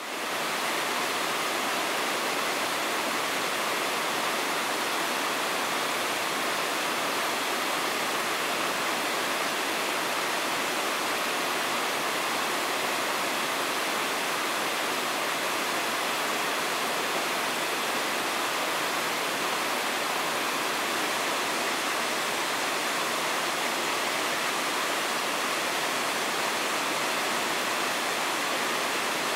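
Steady rushing of a mountain river, an even roar of water with no change throughout. It fades in over the first half second.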